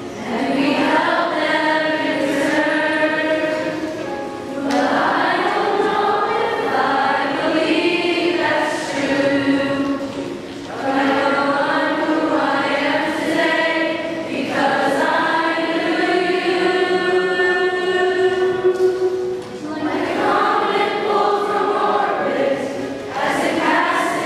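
A choir of schoolchildren and teachers singing together, in long sustained phrases with brief breaks between them.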